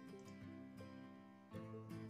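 Faint instrumental background music.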